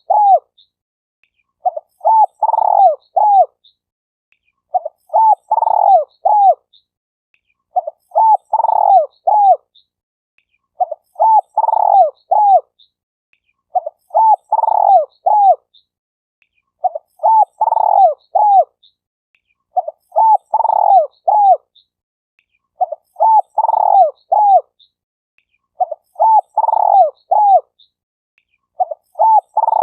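Spotted dove (tekukur) cooing: the same phrase of several coo notes, one of them a longer falling note, repeated about every three seconds, ten times over. Faint high chirps come between the phrases.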